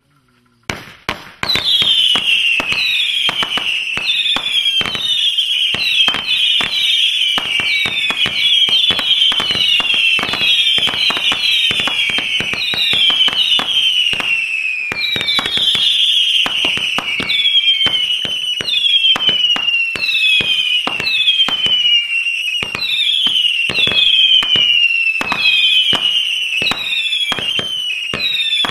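100-shot firework cake firing shot after shot, several a second: each shot is a sharp launch crack carrying a howling whistle that falls in pitch, the whistles overlapping. It starts with a couple of single shots about a second in, then runs on continuously.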